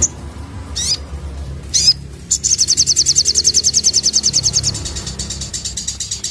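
A sogon (sunbird) singing: two short high twisting calls, then a rapid, machine-gun-like trill of about a dozen high notes a second, the 'nembak' song, loudest at first and a little softer after about two seconds.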